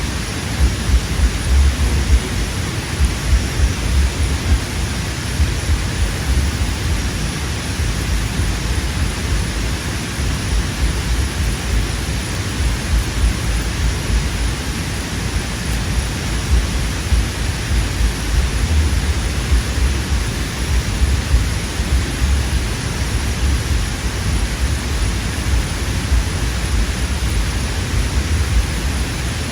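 Wind buffeting the microphone: a steady rushing hiss with a gusty low rumble that rises and falls all the way through.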